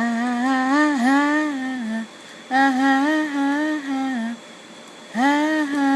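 A single person humming a melody in three long phrases with short pauses between them.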